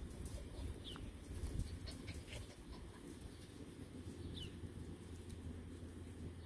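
Young puppies moving about and sniffing in grass, with faint rustles and clicks over a low steady rumble, and two brief high falling chirps, about one second in and near four and a half seconds.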